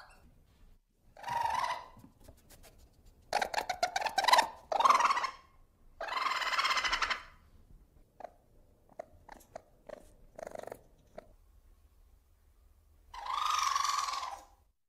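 Ferret calling in short separate bursts, about five of a second or so each with quiet gaps between. One burst a few seconds in is a rapid run of clucking pulses, and there are small clicks in the middle.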